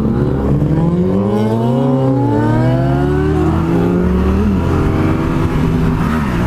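Motorcycle engine accelerating hard from a standstill, its pitch climbing and dropping back at two upshifts about two and a half and four and a half seconds in, then running steadily at speed with wind rushing past.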